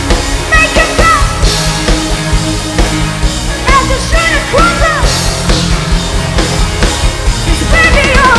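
Live band music played loudly through a PA, with a steady drum beat and short sliding melodic phrases a few times.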